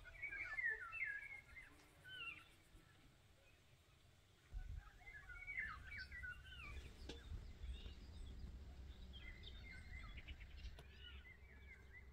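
Small songbirds chirping in short, quick phrases a few times over, against a quiet outdoor background; a low steady background rumble comes in about four and a half seconds in.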